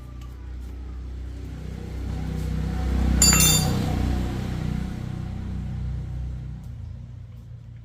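A motor engine's low hum grows louder for about three seconds and then fades away. A single sharp metallic clink rings out at its loudest point.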